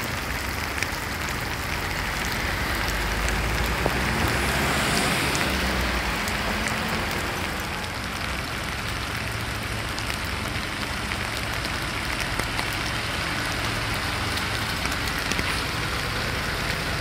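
Heavy rain falling steadily, a dense pattering of drops, over the low rumble of trucks on a wet road.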